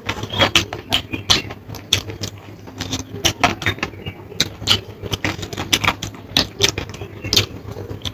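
A person eating close to the microphone: chewing with a quick, irregular run of wet mouth clicks and lip smacks, over a steady low hum.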